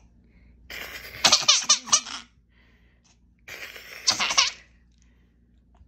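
Six-month-old baby laughing in two bursts, the first about a second in and the second around three and a half seconds in.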